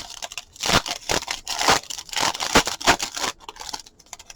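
A football trading-card pack's wrapper being torn open and crinkled by hand: a run of crackling tears and rustles that dies down a little after three seconds in.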